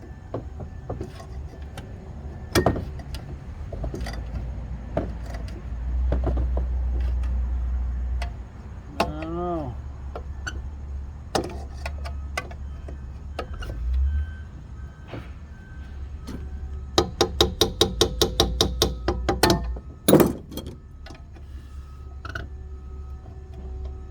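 Hand tools clicking and knocking against metal parts while a stuck screw on an old tube heater is worked loose, over a steady low rumble. Near the end comes a quick run of about eight clicks a second, then one loud knock, after which the rumble stops.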